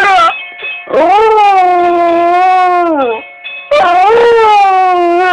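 Dog howling at a doorbell: one howl trails off right at the start, then two long howls of about two seconds each follow. The first holds its pitch and sags at the end.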